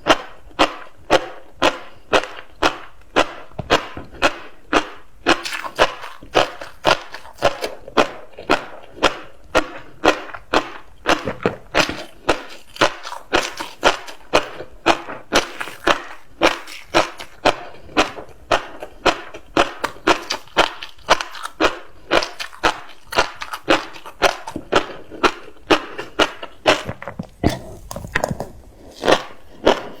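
Close-miked chewing of tobiko (flying-fish roe), the little eggs crunching and popping in a steady rhythm of about two crunches a second. A short low muffled rumble comes near the end.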